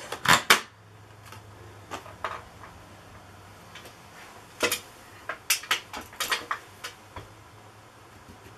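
Plastic Kidde smoke and carbon monoxide detector being twisted on its ceiling mounting bracket, giving a scatter of sharp plastic clicks as its locking lever catches in the bracket's grooves. Two loud clicks come right at the start and a quick cluster of clicks about halfway through.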